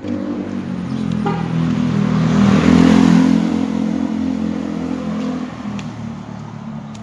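Small motorcycle engine passing close by, growing louder to its peak about three seconds in, then fading as it rides away down the street.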